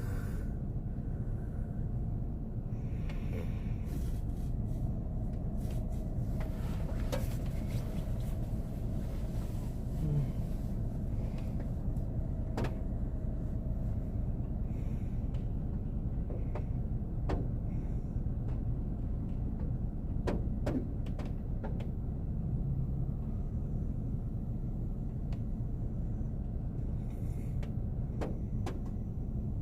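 Steady low rumble inside a car, with scattered sharp ticks of raindrops and wet snow striking the roof and windshield. A sleeping man's snoring breaths come faintly now and then.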